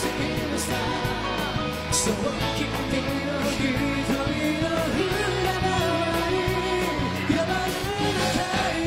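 Up-tempo pop-rock song with male lead vocals over full band backing, the lead passing between different male singers.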